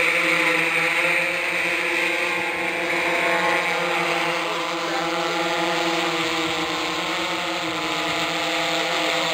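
Large octocopter's eight electric motors and propellers whirring steadily as it lifts off and climbs, a hum of several pitches that waver slightly.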